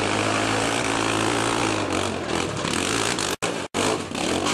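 Dirt bike engine running hard under load as the bike climbs a steep slope, steady at first, then more uneven. The sound cuts out briefly twice about three and a half seconds in.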